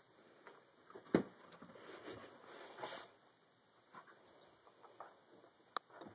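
Faint pattering and scrabbling of a small dog's paws on carpet, with sniffing, as the dog plays with his bone. A sharp knock about a second in and a smaller click near the end.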